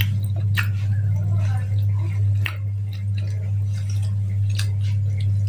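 A person eating by hand and chewing, with scattered soft clicks of fingers and food, over a steady low electrical-sounding hum.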